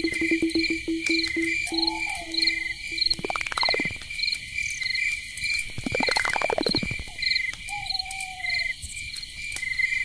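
Insects, likely crickets, chirping in a steady, even rhythm of short high chirps a few times a second. A low pulsing tone fades out in the first few seconds, and two falling swooshes and a couple of short gliding tones pass over the chirping.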